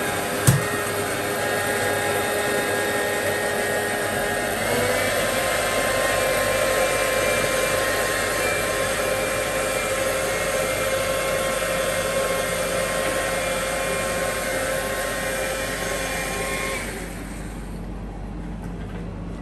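Countertop blender motor running steadily as it blends fruit into a smoothie, its whine stepping up in pitch about five seconds in, then switching off abruptly about two seconds before the end. A single sharp click just after the start.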